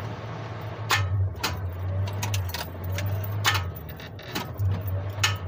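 Starter of a Suzuki F6A multicab engine turning over weakly in several short attempts, with sharp clicks and a jingle of the ignition keys, the engine not catching. It is starved of battery current: a weak battery output traced to a loose battery cable.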